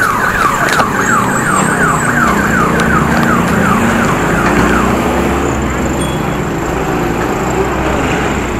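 An electronic siren or alarm sounding rapid falling whoops, about three a second, which stops about five seconds in, over steady road and wind noise from the moving bike.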